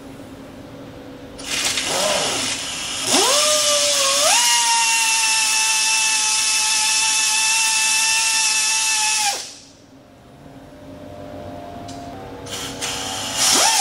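Handheld cut-off tool with a thin abrasive wheel cutting through steel on a car's rear suspension. It revs briefly, then spins up with a rising whine and holds a steady high-pitched whine for about six seconds as the wheel grinds through the metal, then stops suddenly.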